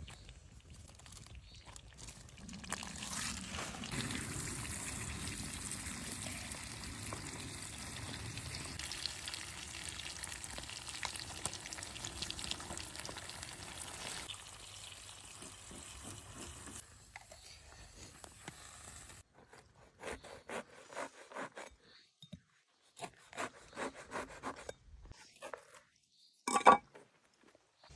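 Food cooking in a pan: a steady hiss for about fifteen seconds, then a run of separate knocks and clatters, with one loud knock near the end.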